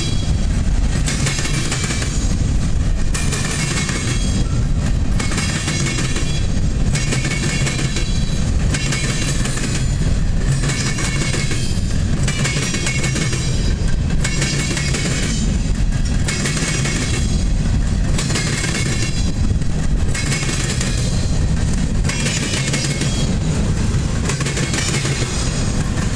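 Freight train cars rolling past over a rail diamond crossing: a steady heavy rumble with a rhythmic clatter of wheels striking the crossing, about once a second.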